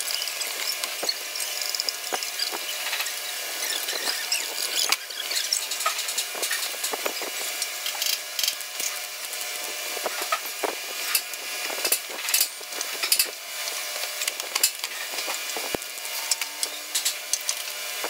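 Sped-up time-lapse audio of TIG welding work on a sheet-metal table: a steady high hiss with many quick clicks and taps running through it.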